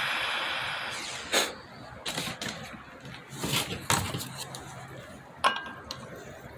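Hissing torch flame dying away within the first second as the torch is shut off, then about half a dozen knocks and clinks of metal wrenches being handled around a steel bearing puller, the last one ringing briefly.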